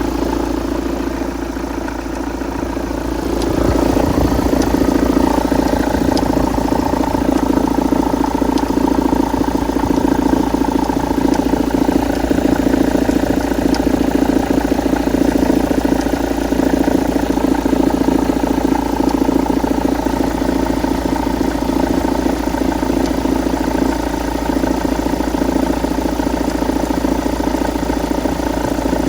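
Engine running steadily, getting louder about three and a half seconds in, with a knock that started after the flywheel was replaced.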